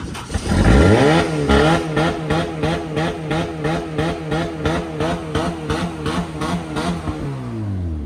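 A car engine starting: it catches within the first second and climbs to a fast idle. It holds there with an even pulsing beat about three times a second, and near the end the revs drop back down.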